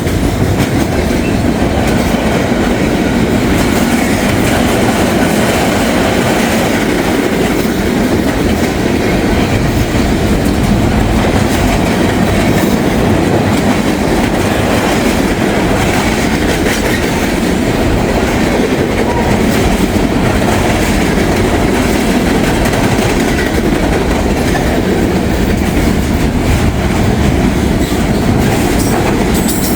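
Norfolk Southern freight train rolling across a railroad bridge, a loud, steady rumble of wheels on the rails with the bridge flexing under the load.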